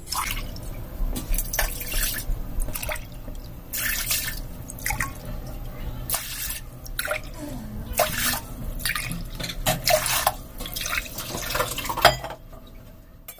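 Water being measured out with a drinking glass: poured from a steel vessel into the glass and from the glass into an empty aluminium pressure cooker, splashing in a series of pours that stop shortly before the end.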